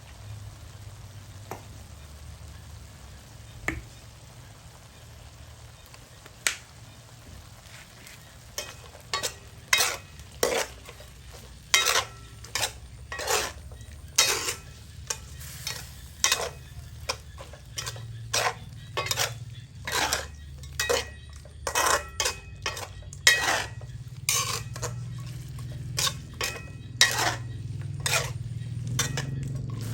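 A metal spatula scraping and knocking against a pan as food is stir-fried, with a steady low hum underneath. The strokes are sparse at first and come about once or twice a second from around eight seconds in.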